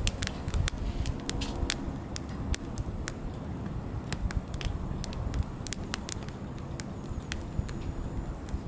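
Wood fire of split logs burning, crackling with frequent, irregular sharp pops over a steady low rumble.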